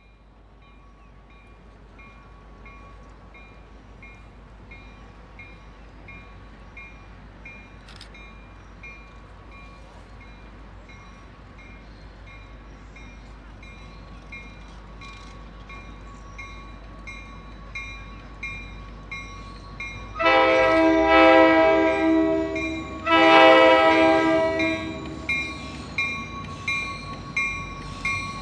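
CapeFlyer passenger train approaching: a rumble grows steadily louder as the train draws near, while a bell rings about twice a second throughout. About two-thirds of the way in, the diesel locomotive sounds two long horn blasts, the loudest sounds here.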